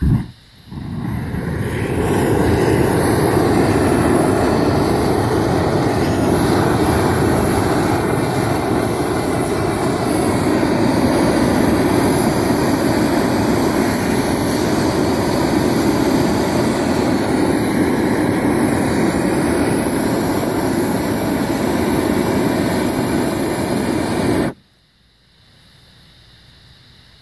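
Harbor Freight propane weed-burner torch burning with a loud, steady rush of flame. A short sharp burst marks its lighting, the flame builds over about a second, and it is shut off suddenly near the end.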